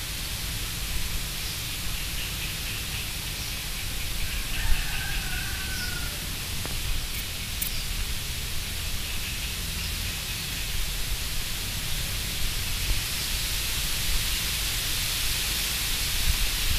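Steady hiss of background noise, with a faint short whistle-like glide about five seconds in.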